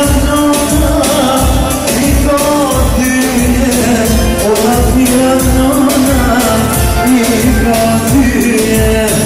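Loud music: a singer's wavering, ornamented melody over a steady beat.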